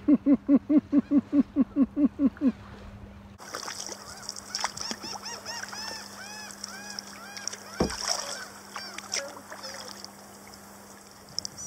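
A goose honks in a fast run of about a dozen loud calls, roughly five a second, over the first two and a half seconds. After that, small birds chirp in a series of quieter, high, arched notes, with a single sharp knock near eight seconds.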